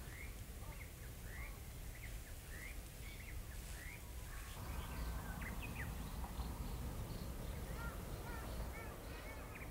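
Small bird calling over and over in short rising chirps, repeated every half second or so, over a steady low outdoor rumble that grows a little louder about halfway through.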